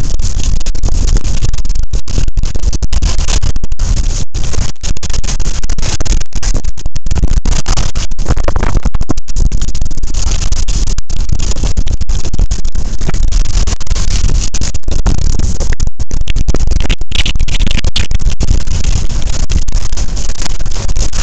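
Wind rushing over an action camera's microphone while skiing downhill, mixed with skis scraping over packed snow; the noise is loud and steady, overloading the small microphone, with brief dropouts throughout.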